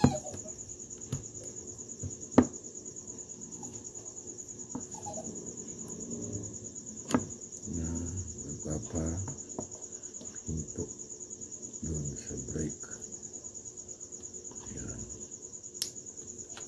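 An insect trilling steadily, a high-pitched sound in fast even pulses. Over it come a few sharp metallic clicks, the loudest at the very start and about two seconds in, from a small tool working on the fishing reel's body, and soft low murmuring in the middle.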